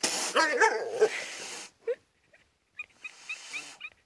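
A horse blowing a loud, breathy snort, with a short whining cry over it. Quieter breathy blowing follows near the end.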